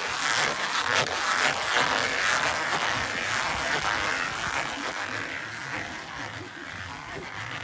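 Pipe tape-wrapping machine running, polyethylene anti-corrosion tape unwinding from the roll onto the pipe with a steady rasping buzz that gradually fades toward the end.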